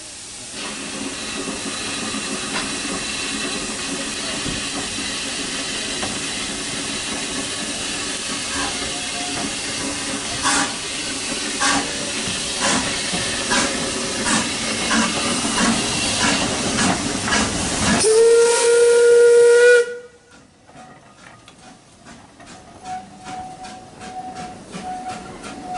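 Beyer Peacock 2-4-0 tank steam locomotive hissing steam as it moves off, with sharp exhaust chuffs starting about ten seconds in, then a steam whistle blowing for about two seconds. After a sudden cut, the train's wheels click steadily over the rail joints as it rolls past.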